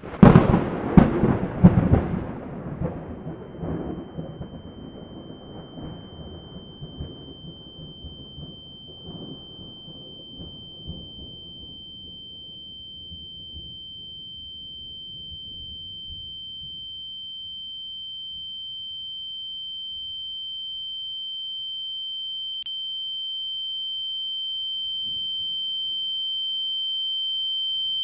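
A loud clap of thunder rolls and slowly fades away over about fifteen seconds. Under it, a steady high-pitched tone comes in a few seconds in and swells louder toward the end.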